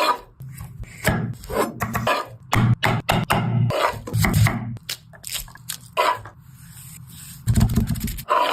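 Irregular scraping and knocking strokes, consistent with food being cut or handled on a wooden surface.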